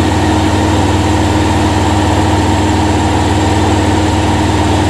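Compressed air from a 120 PSI air system hissing steadily through a Monster Valve chuck into a 42-inch off-road tire, over a steady engine-like hum. The tire is in the last moments of filling, almost at 25 PSI.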